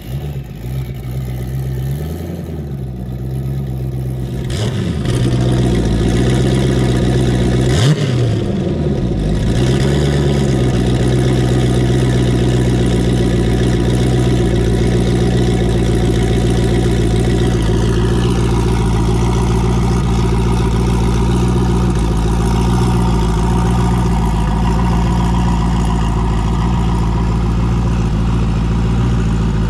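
Turbocharged iron-block 5.3 L LS V8 with a Tick Stage 2 turbo cam, heard through its exhaust. A few short throttle blips come in the first several seconds, then the engine settles into a steady idle.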